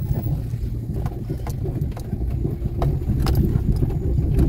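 A car driving slowly over a rough, stony dirt road: a steady low rumble of engine and tyres, broken by scattered sharp clicks and knocks.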